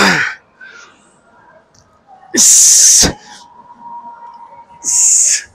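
A man's forceful breaths out through the mouth as he pushes through repetitions on a tricep dip machine: a short voiced grunt-breath at the start, then two loud hissing exhales about two and a half seconds apart.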